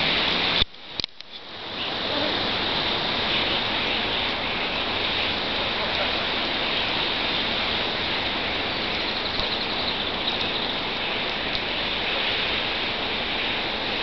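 Steady, dense rushing hiss of a huge flock of small birds massed in flight overhead. The sound drops out briefly just under a second in, then carries on evenly.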